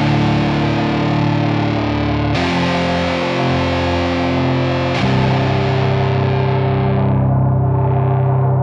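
Background music: distorted electric guitar holding sustained chords that change twice, the treble fading away in a filter sweep near the end.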